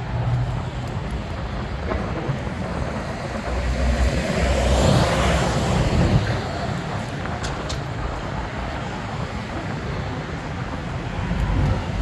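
Cars passing on a busy city street, one vehicle going by loudest about five seconds in, rising and then fading. Under it is a steady low rumble of wind on the microphone.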